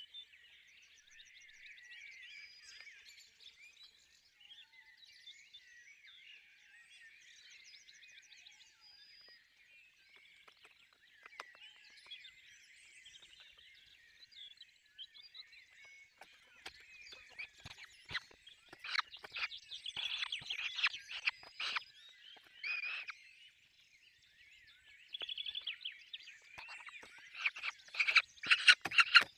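Peregrine falcon chicks calling at the nest: faint high chirps and short trills at first, then louder calls in clusters about two-thirds through, building to a fast run of loud repeated calls near the end.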